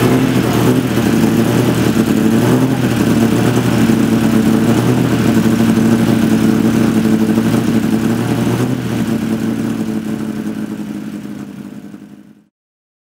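Vintage Frazer Nash sports car's engine running at steady revs, fading away near the end.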